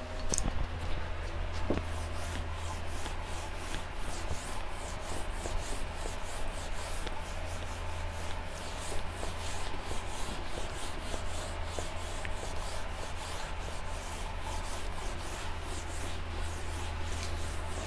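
Whiteboard being wiped clean with a hand-held eraser: continuous back-and-forth rubbing strokes, several a second, over a steady low hum.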